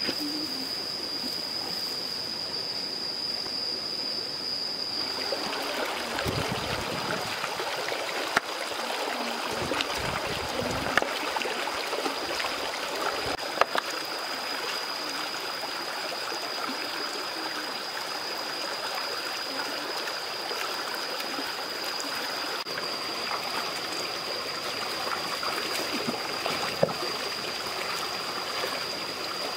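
Shallow rocky stream running over stones, a steady rushing and trickling that grows fuller about five seconds in. A thin, steady high whine sits over it, and there are a few short, sharp knocks.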